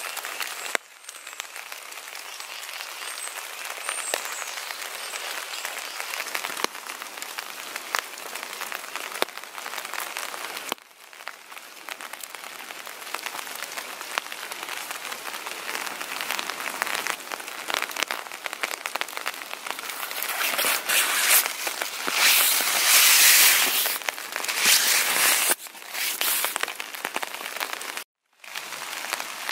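Footsteps crunching and rustling through dry leaf litter on a dirt hiking trail: a dense crackle of small clicks. It grows louder for a few seconds about two-thirds of the way in and breaks off briefly three times.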